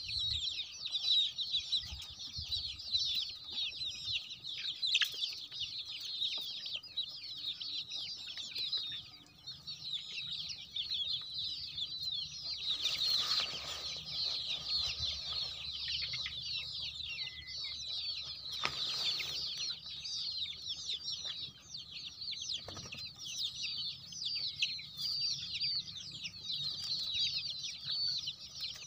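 A flock of young country chicks peeping constantly in a dense, high-pitched chorus. Two brief rustles come about halfway through and a little after.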